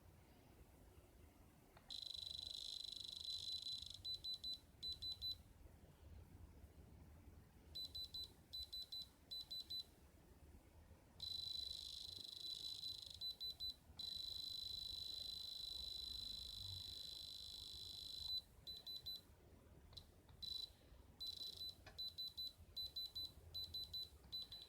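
Electronic gem tester beeping at a high pitch, sometimes in long unbroken tones of several seconds and sometimes in runs of quick short beeps.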